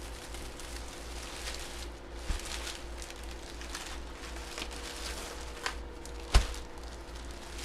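Packaging being handled: soft crinkling and rustling with a few light knocks, the sharpest about six seconds in, over a steady low electrical hum.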